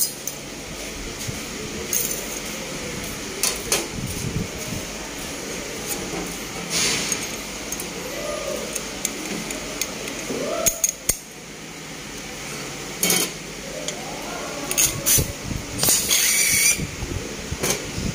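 Sheet-metal parts clinking and knocking as galvanized steel angle pieces are handled, with short hisses of compressed air from a pneumatic stud press, the longest near the end. Faint voices in the background.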